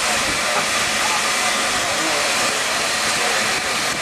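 LNER B12 steam locomotive standing with steam hissing loudly and steadily.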